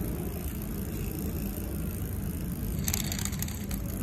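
Vintage Panasonic road bike drivetrain turned by hand: the chain running over the chainrings, with a rapid clatter of clicks about three seconds in as the front derailleur is shifted between the chainrings.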